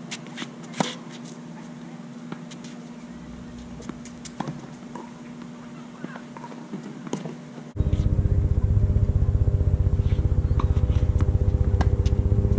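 Scattered sharp knocks of tennis balls struck by racquets and bouncing on a hard court, over a steady low hum. About eight seconds in, a loud low drone with a fast, even pulse starts abruptly and continues.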